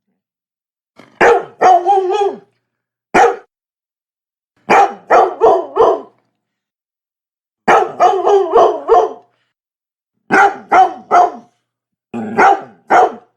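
A Labrador barking in quick runs of two to five barks with short pauses between, about twenty barks in all, with dead silence in the gaps.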